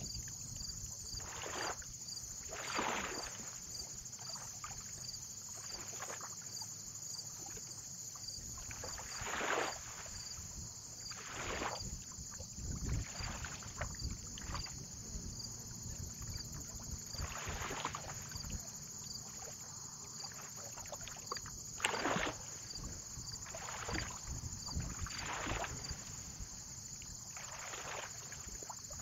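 Small waves lapping and splashing at the water's edge, a soft splash every second or two over a low rumble of wind.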